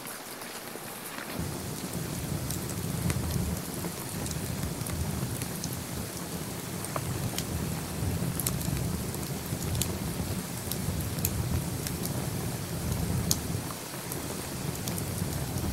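Wood campfire burning: a steady low rumble of flames that comes in about a second and a half in, with scattered sharp crackles and pops.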